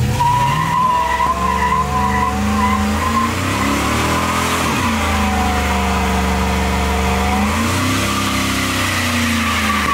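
A car doing a burnout with the engine held at high revs and the tyres squealing in a steady high screech. The revs dip about four to five seconds in and climb again near eight seconds.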